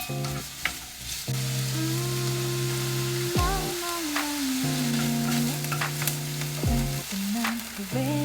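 Food sizzling in a hot pan while being stirred, with scattered sharp clicks of a utensil against the pan.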